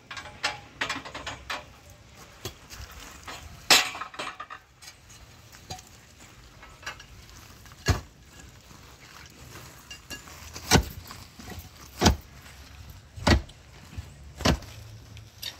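Sharp metallic clanks from the steel rods of a soil-sounding borehole being worked by hand: about six separate knocks, the last four about a second apart.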